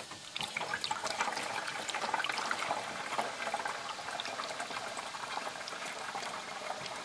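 Distilled water being poured through a white plastic funnel into the water reservoir of a car's hydrogen generator system. It starts a moment in and then runs on steadily.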